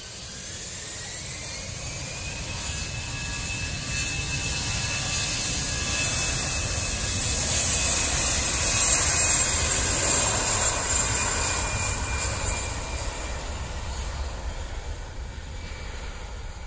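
Citilink Airbus A320 jet engines at high thrust during the takeoff roll. A whine rises in pitch over the first couple of seconds and then holds steady over a broad rumble. It grows louder as the jet passes, loudest about halfway through, then fades as it moves away down the runway.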